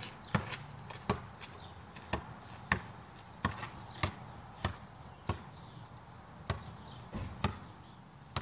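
Basketball being dribbled, bouncing on hard ground in a steady, slightly uneven rhythm of sharp bounces, roughly one every half second to second.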